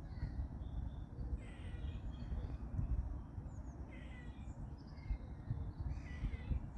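Squirrel giving short, harsh, nasal calls three times, about two seconds apart, over a steady low rumble.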